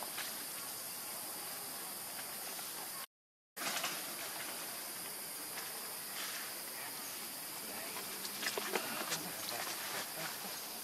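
Outdoor ambience: a steady high-pitched insect drone, with scattered light crackles and rustles of dry leaves underfoot, most around two-thirds of the way through. The sound drops out completely for about half a second around three seconds in.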